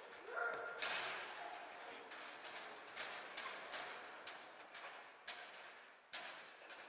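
A run of irregular light knocks and taps, about two a second, loudest about a second in and growing fainter.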